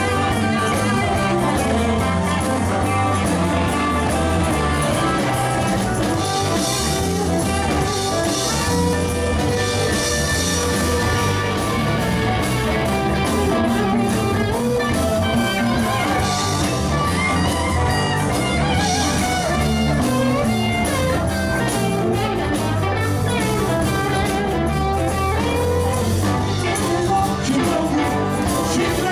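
A rock band playing a blues-rock number, with guitar to the fore over bass and drums.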